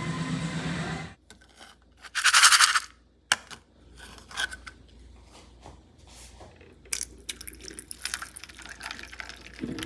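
Dry black beans and oat grains poured into a stainless steel container: a brief loud rattling rush about two seconds in, then scattered light clicks and taps of beans settling and the container being handled.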